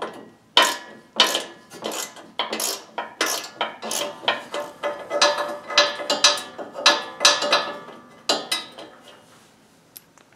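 Hand tools working a shear bolt loose from the auger of a Honda HSS1332 snowblower: a long run of quick metallic clicks and rasps with some ringing, stopping about nine seconds in.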